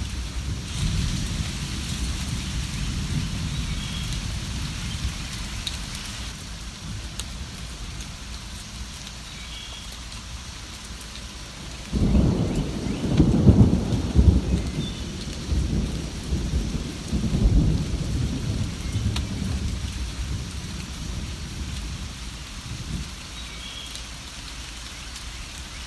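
Steady rain falling during a thunderstorm. A low thunder rumble fades out at the start, then about halfway through a sudden thunderclap rolls on for several seconds. Faint short bird chirps come now and then.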